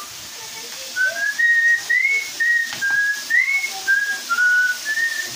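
A person whistling a tune, a string of short single notes stepping up and down, starting about a second in. Potato sticks sizzle faintly in hot oil underneath.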